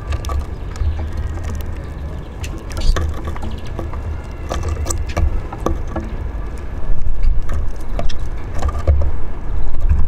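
Eurasian siskins and a greenfinch feeding on seed at a wooden bird table: scattered sharp clicks and taps of beaks and feet on seed and the feeder dish, with a few faint thin calls, over a steady low rumble that grows louder about seven seconds in.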